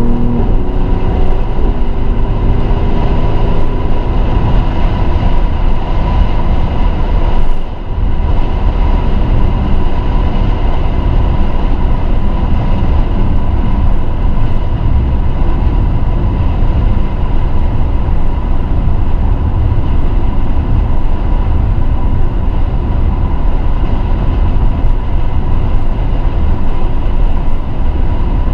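Mercedes-AMG GLE 43 driving at a steady speed: a constant rumble of engine, tyre and road noise, heaviest in the low range. It briefly drops about seven and a half seconds in.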